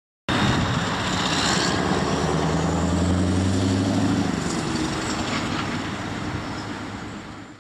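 Heavy diesel truck driving past, engine running under steady road and tyre noise. The engine tone is clearest in the middle and fades away toward the end.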